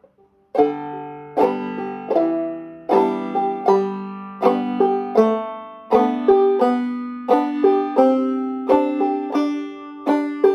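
Five-string banjo played clawhammer style in the bum-ditty pattern: a struck melody note, a brush across the strings and the thumb popping the drone string. The plucked notes ring in a steady rhythm from about half a second in, with the strike notes moving through a melody.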